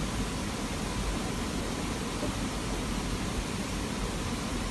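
A steady, even hiss with a low rumble underneath, unchanging throughout, with no distinct sounds standing out from it.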